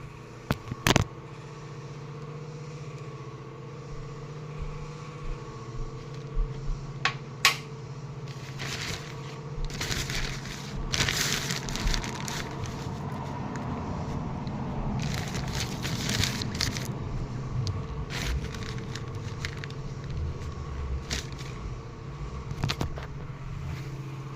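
Plastic sheeting crinkling and crackling as it is handled and pulled over the storage, busiest in the middle, with a few sharp clicks over a steady low hum.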